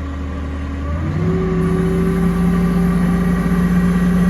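Forklift engine idling in neutral, then revved up about a second in and held at a steady higher speed.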